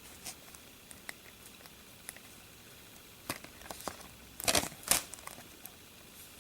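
DVD case and packaging being handled: scattered small clicks and rustles, with a few louder knocks and crinkles about three and a half seconds in and again between four and a half and five seconds.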